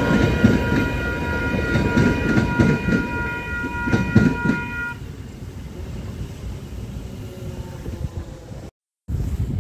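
Matangi electric multiple unit running past over a level crossing, wheels clicking over the rail joints, while the crossing's warning bell rings steadily. The train sound and the bell both stop about halfway through, leaving a quieter background. Near the end the sound cuts out for a moment and then a train rumble starts again.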